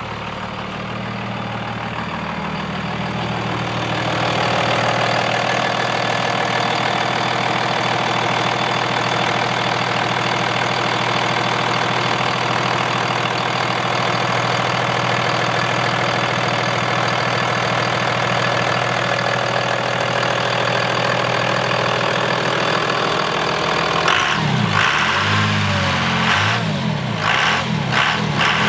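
Second-gen Dodge Ram 2500's 24-valve Cummins turbo diesel idling steadily, then revved briefly a few times near the end.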